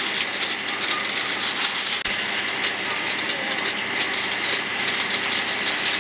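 Hand-held hose nozzle blasting a steady, loud hissing jet onto engine parts, a rocker-arm shaft and then a bunch of pushrods, with fast crackling spatter off the metal.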